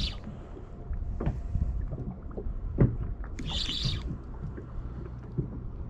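Steady low rumble of wind and water around a small fishing boat, with a few light knocks and two short hisses, one at the start and one about three and a half seconds in.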